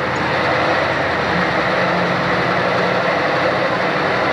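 Massey Ferguson 2805 Pro Stock pulling tractor's diesel engine idling steadily and loudly while it sits at the sled.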